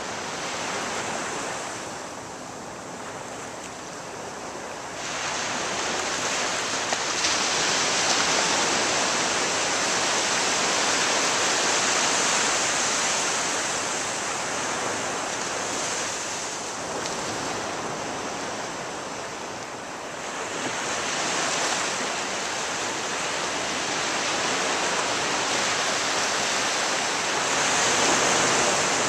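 Ocean surf breaking and washing up a beach: a steady rush of water that swells and eases in slow surges. It builds about five seconds in, eases off again after about eighteen seconds, and swells back up towards the end.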